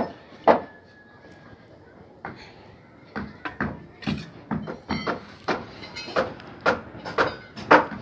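Bricklayer's steel trowel knocking on bricks and mortar as bricks are laid and tapped into place on a wall. Two sharp knocks come near the start, then after a pause a run of taps about two a second, some with a short metallic ring.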